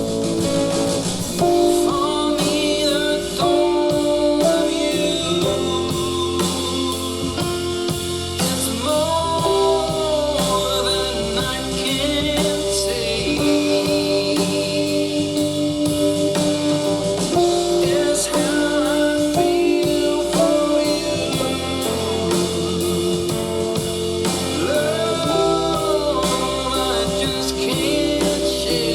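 A rock/blues song with guitar, drums and singing, played back through the Harman/Kardon HK 3250 stereo amplifier as an audio test.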